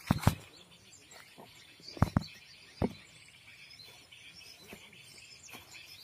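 Five sharp knocks, wood on wood, from a long stick or pole being handled: two at the start, two close together about two seconds in, and one just before three seconds. Faint chirping of forest birds and insects runs underneath.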